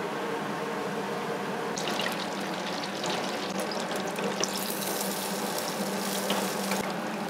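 Panko-breaded carp pieces deep-frying in a small pan of hot oil: a crackling sizzle that grows louder about two seconds in, over a steady low hum.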